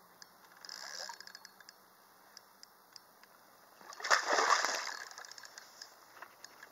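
Large hooked carp splashing at the surface: a small splash about a second in, then a louder splash about four seconds in that lasts about a second as its back breaks the water.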